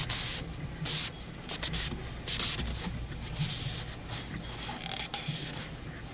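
A string of short, irregular rubbing and rustling strokes as hands work over the oil filter housing with a rag, wiping it clean of oil.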